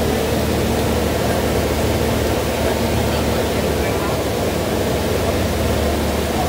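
Steady low hum of a KSRTC bus's diesel engine and road noise heard from inside the cabin as the bus moves slowly, with passengers' voices murmuring under it.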